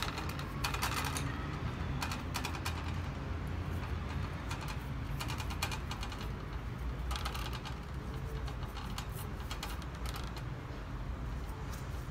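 Pastry brush dabbing sugar syrup glaze onto hot baked rolls in a metal baking tray: irregular soft clicks and taps in short clusters, over a steady low hum.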